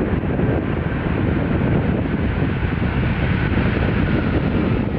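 Boeing 747 freighter's jet engines running with a steady, heavy roar as the aircraft rolls out on the runway after touchdown. Wind buffets the microphone.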